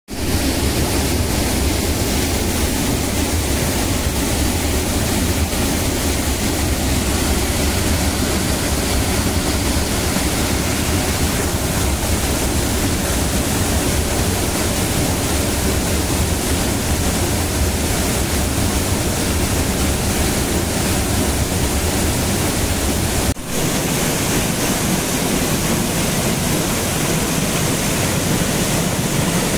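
Rain-swollen waterfall on a monsoon stream pouring hard over rocks into a pool: a loud, steady rush of water, with one momentary drop about three-quarters of the way through.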